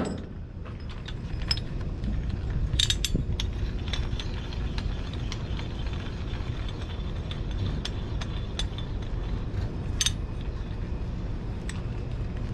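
An oiled steel ratchet chain binder being worked by its handle, its ratchet clicking in a run of short clicks, loudest about three seconds in and again near ten seconds in.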